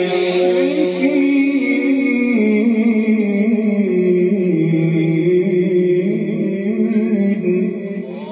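A man reciting the Quran in melodic tilawat style, holding one long drawn-out phrase through microphones. His pitch sinks and climbs again in slow steps, and the voice fades near the end.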